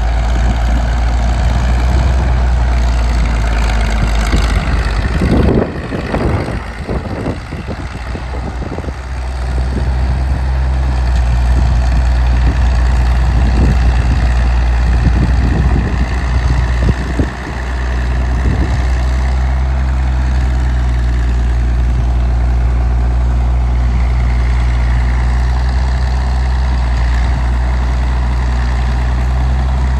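1952 Caterpillar D6-9U bulldozer's diesel engine running steadily under work. Its even drone is broken by a string of knocks and a drop in level about five to nine seconds in, and by another brief break near seventeen seconds.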